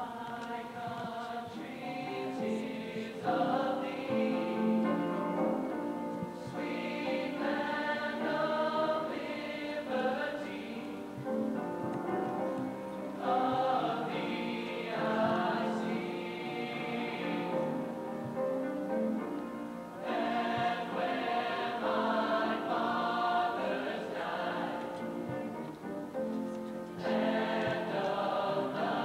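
A school choir singing together in long held phrases, with short breaks between phrases.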